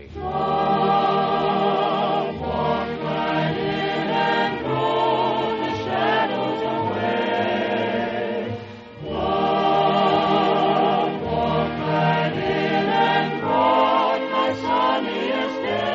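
A mixed choir singing held chords with vibrato, with a brief break in the phrase about nine seconds in.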